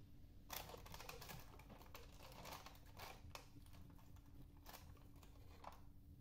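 Faint, quick irregular clicking and light rattling of peanuts as fingers pick them from a plastic tub and scatter them onto a plate, starting about half a second in and stopping shortly before the end.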